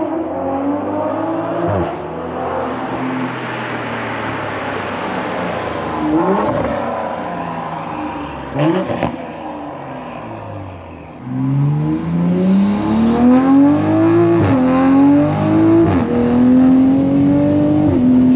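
Toyota Supra straight-six engine accelerating hard through the gears. The exhaust pitch climbs and falls at each upshift, and a louder pull starts about eleven seconds in.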